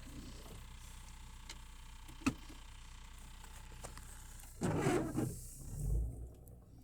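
Car interior with a steady low hum, a single sharp click a little past two seconds in, then a short noisy rustle about four and a half seconds in followed by a low thud.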